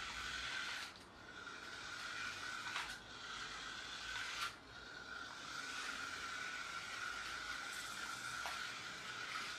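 Small electric drive motor of a toy radio-controlled Ferrari 458 Italia whining steadily as the car runs over a wooden floor, with a hiss from its gears and tyres. The whine cuts out and picks up again a few times in the first half, with a sharp click at each change.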